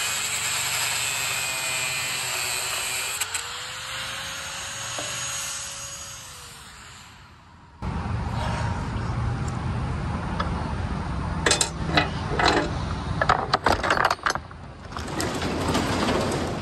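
Small handheld power cutting tool whining as it cuts off the lock on a box truck's rear door; its pitch rises about three seconds in, then it spins down. Later, a cluster of metal clacks and rattles as the rear roll-up door is unlatched and raised.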